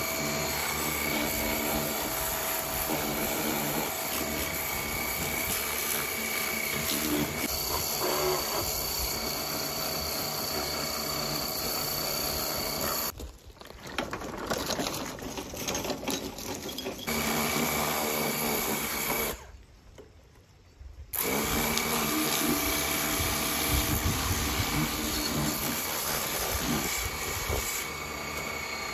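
Electric pressure washer running with a steady motor whine under the hiss of its water jet, spraying the deck of a walk-behind mower. The sound drops away sharply twice around the middle.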